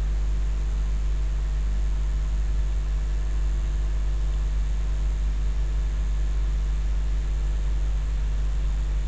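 Steady low electrical hum with an even hiss, unchanging throughout: the background noise of the narration microphone while no one speaks.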